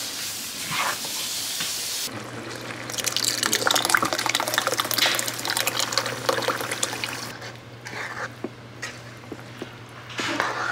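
Liquid poured into a pan of chickpeas and stirred with a spoon: splashing and scraping over a steady low hum that sets in about two seconds in.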